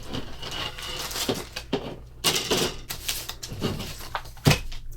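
Hands handling the contents of a plastic model kit box (sprues, paper booklet, cardboard): irregular rustling and light clicking and clattering, with one sharp knock about four and a half seconds in.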